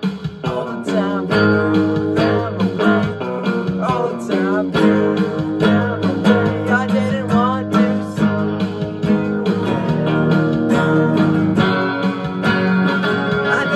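Guitars playing an instrumental passage of a band's demo song, strummed acoustic guitar with a guitar line over it, with no vocals.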